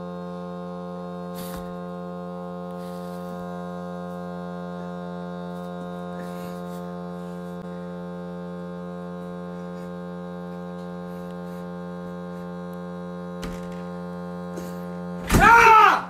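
A steady hum, broken near the end by a person's loud yell.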